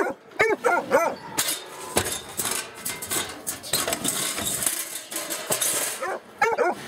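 Young blue-ticked hound pup barking in short, high yips, a few about half a second in and again near the end. In between come scraping and rattling clatter.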